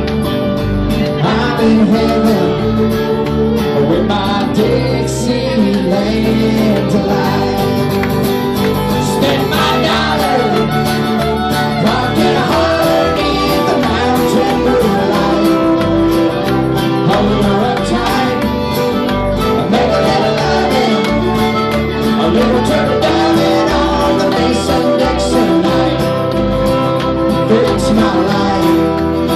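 Live acoustic country-bluegrass band playing: several acoustic guitars strumming steadily, with a wavering lead melody over them.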